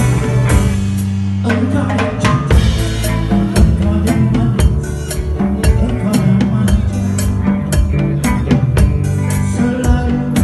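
Live band playing an instrumental number: a drum kit keeping a steady beat of bass drum, snare and cymbals under electric guitar, bass and electronic keyboard.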